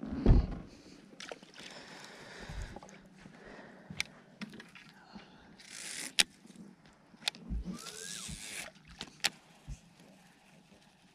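Fishing gear being handled on a boat: a bump near the start, then a few sharp clicks and two short hissing rushes.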